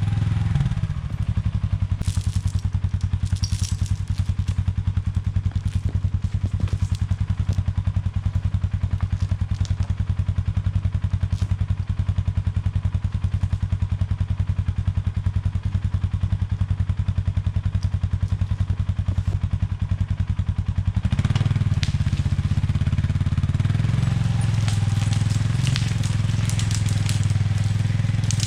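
Polaris 570 utility vehicle's engine running steadily with an even pulse. About two-thirds of the way through it grows louder, with crackling and crunching from the last few seconds on.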